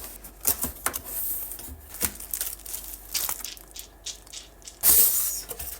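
Gift packaging being torn and handled open by hand: irregular crinkling, crackling and clicks, with the loudest burst of it about five seconds in.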